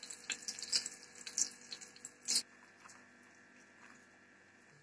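Flour-coated zucchini slices crackling and popping in hot vegetable oil in a frying pan as a slice is lifted out, with one sharper click a little over two seconds in. After that the crackling dies down to near quiet.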